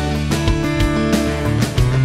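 Background music: guitar-led instrumental with a steady beat and bass.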